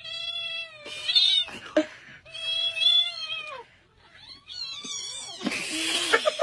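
A cat meowing: four drawn-out meows, the second and fourth wavering in pitch, then a short harsh, hissy cry near the end.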